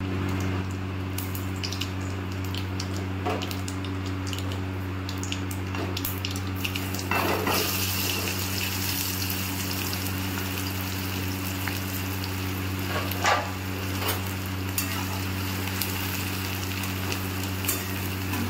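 Hot oil sizzling in a kadhai on a gas stove, under a steady low hum. About seven seconds in, chopped onions are tipped into the oil and the sizzle swells, then a metal spatula stirs them with a few clinks against the pan.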